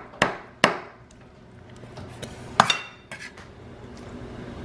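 A cleaver chops cooked chicken on a wooden cutting board, two quick strokes at the start. About two and a half seconds in comes a sharper metal clink with a short ring, then a few lighter clicks, as the cleaver scrapes the chopped chicken onto a plate.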